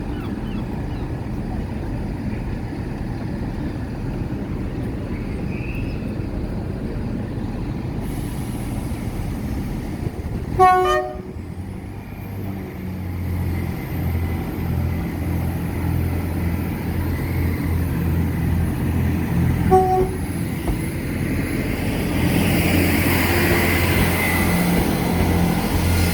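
A diesel train sounds its horn in one short blast, then a second, shorter blast about nine seconds later. Its engine drone grows louder as it draws near and runs onto the crossing.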